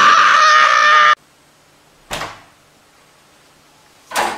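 Loud, shrill squealing from a small dog biting and tussling with a squeaky plush glove toy, cut off abruptly about a second in. Two brief thuds follow, a couple of seconds apart.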